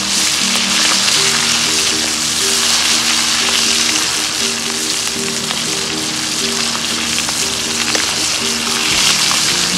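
Whole chicken deep-frying in hot oil in a wok, a loud steady sizzle, as oil is ladled over it. Quieter background music plays underneath.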